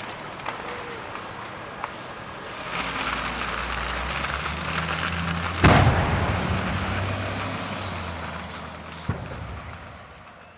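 Large fuel tanker fire: a steady, even rushing noise over a low traffic rumble, with a sharp bang about five and a half seconds in and a lighter knock near the end as the sound fades out.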